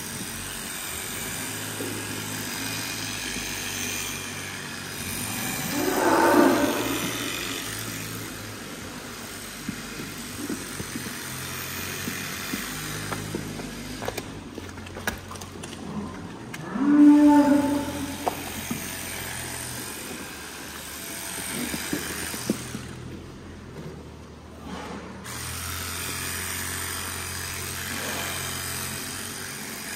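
Cows mooing twice, once about six seconds in and again about seventeen seconds in, over a steady low mechanical hum and scattered clicks.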